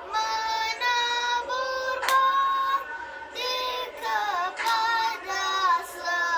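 A boy singing a dikir barat melody solo, in phrases of long held notes that waver and bend, with short breaks between them. A single sharp hit cuts in about two seconds in.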